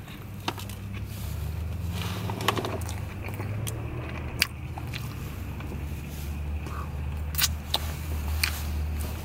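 A man biting into a Grand Mac burger and chewing it: scattered wet mouth clicks and smacks over a low steady hum. There is a lip smack near the end.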